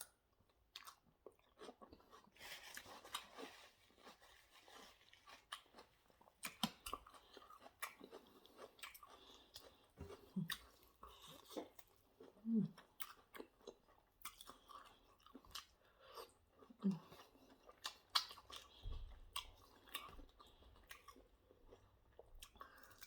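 Close-miked chewing and biting of chicken wings and salad: irregular wet mouth clicks and crunches, with a few brief low hums.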